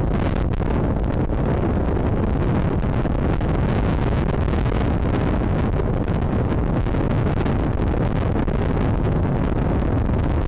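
Wind buffeting the microphone: a steady, loud rumbling noise with no break.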